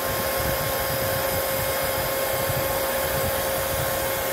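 A 12 V turbo (blower) cooling fan running at full speed, a steady rush of air with a constant whine, pushing about 21 km/h of air.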